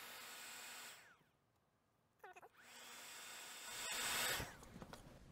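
Handheld blow dryer running with a steady rush of air while drying wet model paint. It cuts out about a second in, starts again, grows louder a little before the end, then drops away.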